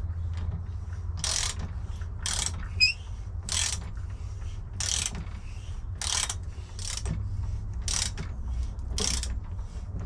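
Hand socket ratchet clicking on each back-swing as the crank bolt of a mountain bike crankset is run down: about nine bursts of pawl clicks, roughly one a second, with a short squeak near the start.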